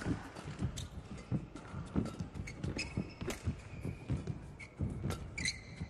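Badminton rally: players' shoes thudding and squeaking on the court mat, with sharp pops of rackets striking the shuttlecock. Short shoe squeaks come around three seconds in and again near the end.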